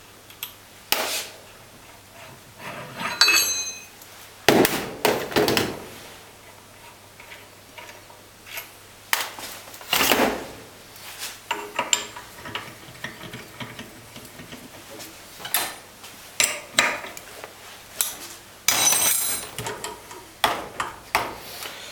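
Steel parts of an injector clamping device being handled, fitted and set down on a metal workbench: irregular clanks, knocks and clicks, with a short metallic ring about three seconds in.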